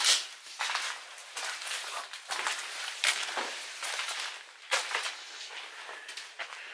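Footsteps of a person walking, a string of short scuffing steps at an uneven pace of about one or two a second.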